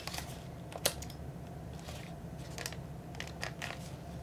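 Faint handling clicks of a plastic compact film camera being turned over in the hands, with one sharper click about a second in and a few light clicks near the end, over a low room hum.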